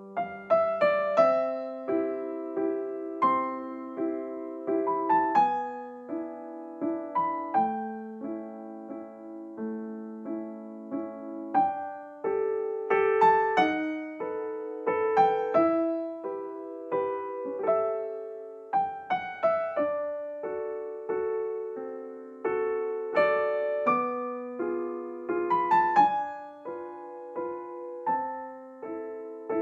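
Solo piano music: a gentle melody over held chords, notes struck and left to decay.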